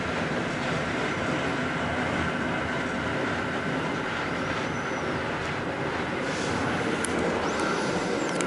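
Steady running noise of an A9o passenger compartment coach rolling along the track, heard from inside the compartment, with a faint steady tone and a few faint high squeaks in the second half.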